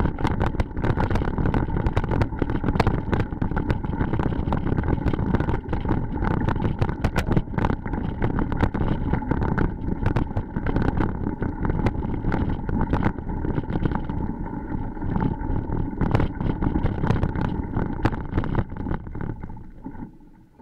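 Bicycle rolling fast over a rocky dirt road, picked up by a bike- or helmet-mounted camera: a loud rumble full of rapid rattling clicks from the bumps, with wind on the microphone. The noise drops away sharply near the end.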